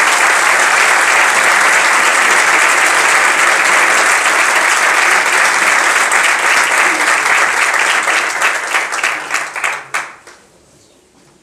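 Audience applauding steadily, thinning to scattered single claps and dying away about ten seconds in.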